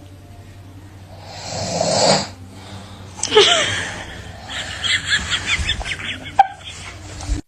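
A man snoring, with one long noisy snore about two seconds in, followed by a run of short stifled laughs.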